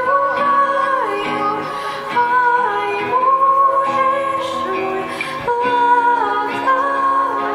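Young girls' voices singing a slow, sad song together over instrumental accompaniment, holding long notes and sliding between them.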